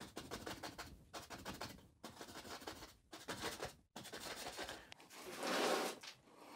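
Stiff bristle brush scrubbing oil paint onto canvas in repeated strokes, with short pauses between them. A louder, fuller rush of noise about five and a half seconds in.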